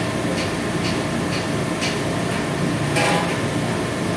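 Steady mechanical running noise with a light tick about twice a second, and a louder clatter about three seconds in.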